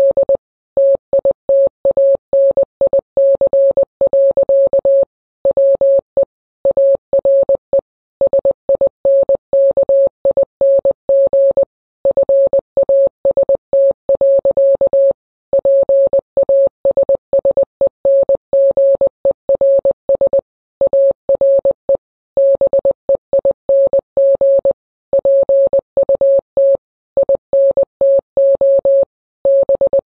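Morse code played as a single-pitched electronic beep, keyed in short dots and longer dashes with pauses between letters and words, sending the Titanic's last distress message (SOS, CQD, 'We are sinking fast. Passengers are being put into boats').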